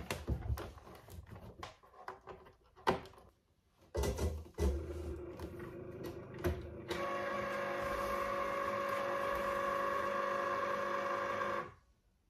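Knocks and clicks as a Cricut cutting machine is handled and set down, then its motor whirs steadily for about five seconds and cuts off suddenly.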